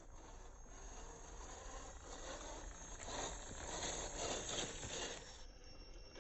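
Scale RC rock crawler working its way over rough ground: a scraping, crunching noise of tyres on rock and grit that swells about two seconds in and drops away near the end.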